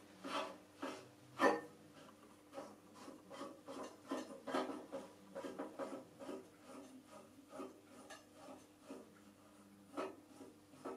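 Small scraping and rubbing clicks from turning the focus screw of an old Fresnel studio spotlight, sliding the lamp inside to change the spot size. A sharper click comes about a second and a half in and another near the end.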